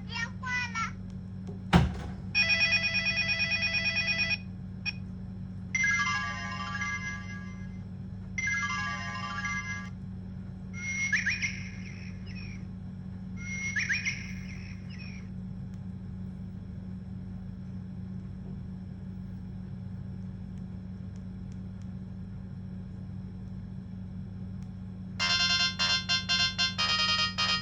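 Samsung SGH-T108 mobile phone playing a series of short electronic alert tones through its speaker: a held chord for about two seconds, two shorter tones, then two warbling trills, followed by a long pause and a fast ringtone melody starting near the end. A steady low hum runs underneath, and a single thump sounds about two seconds in.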